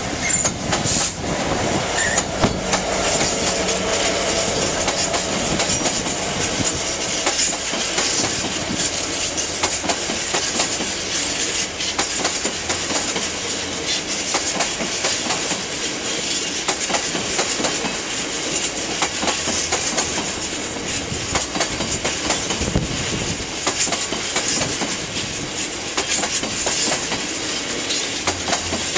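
A Class 66 diesel-electric freight locomotive's engine passes at the start, followed by a long rake of hopper wagons rolling by. The wagon wheels clatter steadily and irregularly over the rail joints.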